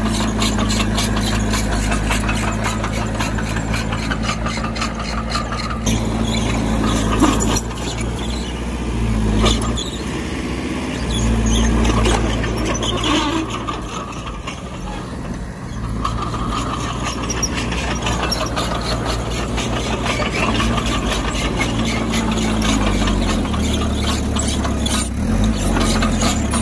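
Bulldozer working: its diesel engine running steadily under load, with a squeal and rapid clatter from the steel tracks. The engine note shifts pitch a couple of times.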